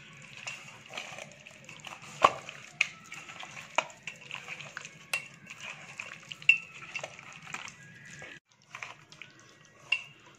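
Hand mixing pieces of raw fish into a thick masala marinade of ground spice paste, cornflour, lemon juice and oil in a bowl: irregular wet squishing and scraping, with a few sharp clicks.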